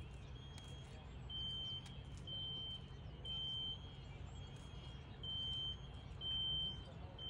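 An electronic alarm beeping over and over, a high half-second tone about once a second, over a steady low hum.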